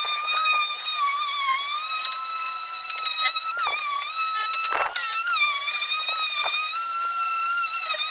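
Electric power sander running with a steady high whine that wavers and dips slightly in pitch now and then, with a few light knocks.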